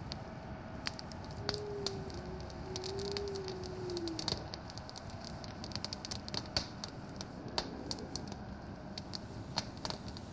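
Wood fire crackling, with irregular sharp pops and snaps over a steady hiss and a soft wavering whistle in the first few seconds.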